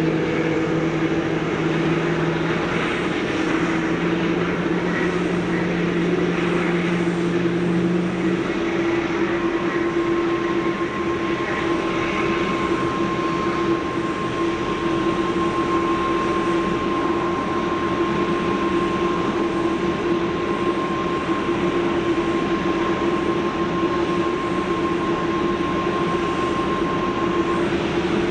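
Boeing 747-8 airliner's steady jet whine and hum at pushback, several steady tones over a rushing noise. A lower tone drops out about eight seconds in, and a thin higher whine comes in about a second later and stops near the end.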